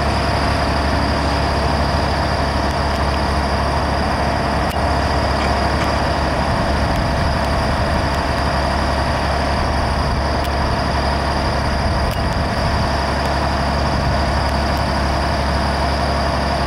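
Fire trucks' diesel engines idling steadily to power their raised aerial ladders: a constant low drone with a faint steady whine above it.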